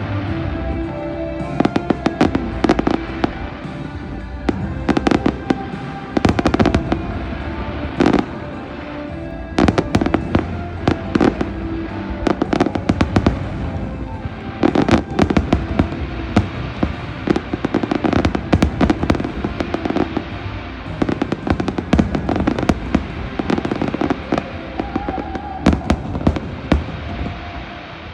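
Fireworks display: sharp bangs and crackles fired in rapid, irregular volleys over music, thinning out near the end.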